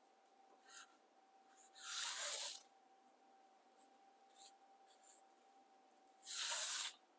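Two short rubbing, scraping strokes about four seconds apart, with a few light clicks between them, over a faint steady hum.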